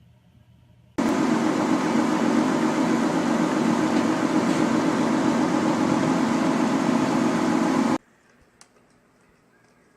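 A loud, steady, whooshing mechanical noise that starts abruptly about a second in and cuts off abruptly about seven seconds later, followed by a few faint ticks.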